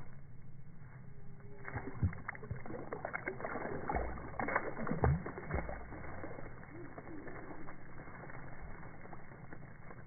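Slowed-down water splashing and sloshing in a birdbath tub as a noisy miner dives in and beats its wings, starting about two seconds in, with several heavy low thuds, the loudest around five seconds in, then settling to a softer slosh.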